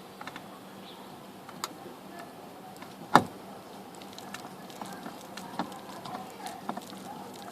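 Small scattered clicks and taps of hand tools and screws while a screw is driven back into a car door, with one sharp, louder knock about three seconds in.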